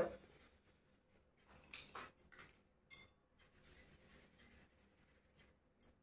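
Faint scratching of a marker pen drawing on thin card, in short scattered strokes.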